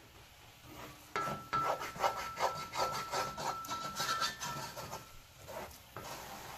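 Wooden spoon scraping and stirring a thick berbere-and-onion paste against the bottom of an aluminium pot, in quick rhythmic strokes of about four a second that start about a second in and stop near five seconds. The paste is being fried dry, with no water added.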